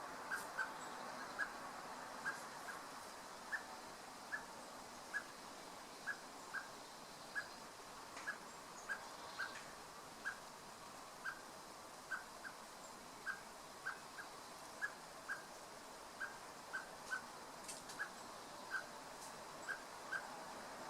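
Male Eurasian blackbird repeating short, sharp call notes, about one to two a second and slightly irregular, calling to its chick.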